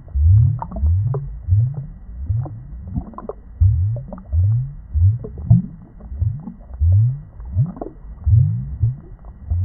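Underwater bubbling: deep gurgling bloops, about two a second at an uneven pace, each rising in pitch, with fainter higher chirps among them.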